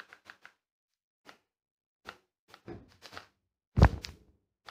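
A puff on a vape fitted with a rebuildable dripping atomizer and a 0.18-ohm coil: faint scattered clicks and crackles, then about four seconds in a sudden loud gust of breath as the cloud of vapour is blown out.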